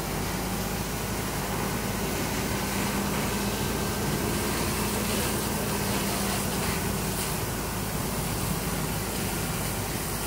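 A steady engine hum under a constant hiss, with a fire hose stream spraying water at the start.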